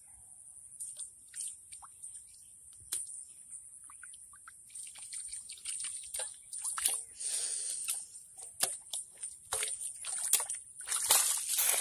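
Muddy water sloshing and splashing as a steel bowl scoops it up and pours it out of a shallow pool, in scattered short splashes that grow busier and louder in the second half.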